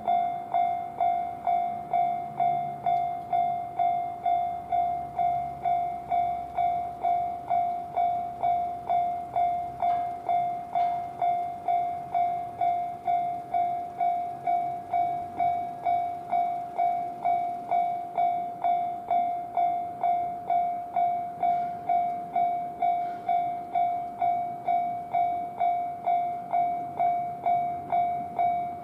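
Japanese railway level-crossing warning bell ringing its steady "kan-kan" alarm, about two strikes a second.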